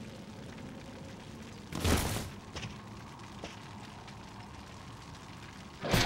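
One loud blast sound effect about two seconds in, over a low steady rumble, with a couple of faint clicks after it. Rock music starts right at the end.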